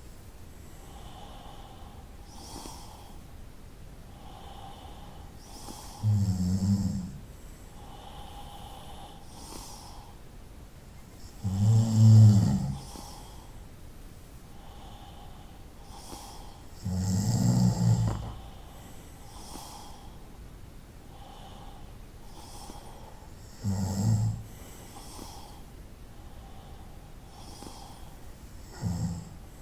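A person snoring: five deep snores of about a second each, one every five or six seconds, the loudest about twelve seconds in.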